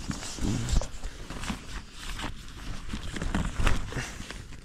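Footsteps and rustling as a person moves about, a run of irregular short crunches and knocks.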